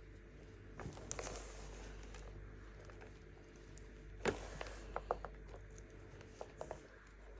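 Compressed baking soda being crushed: a few short, sharp crunches and crackles, a small cluster about a second in, the loudest a little after four seconds, then several quick ones, over a steady low hum.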